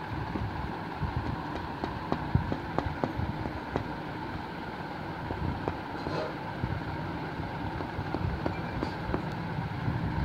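A bundle of cotton buds dabbing paint onto paper, making irregular soft taps over a steady background hum.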